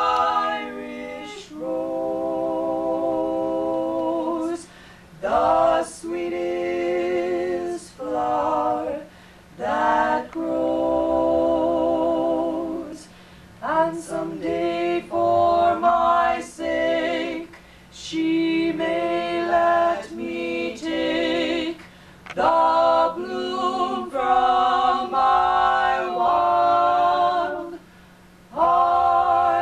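Female vocal trio singing a cappella in close harmony, holding long chords in phrases of a few seconds, with short breathing breaks between them.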